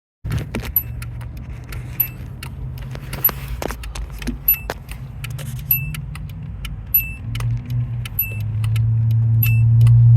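A car's engine running, heard from inside the car, with a steady low hum, a sharp tick about once a second and light rattles and knocks; the engine note grows louder near the end.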